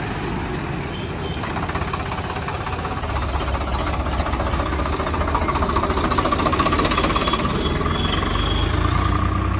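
Diesel engine running with a steady knocking clatter, growing louder from about a second and a half in.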